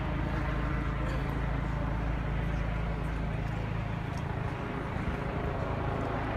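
Steady low drone of a helicopter, with indistinct voices mixed in.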